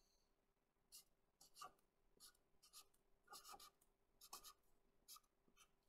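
Black felt-tip marker writing on paper: about ten short, faint strokes at an uneven pace as a word is lettered by hand.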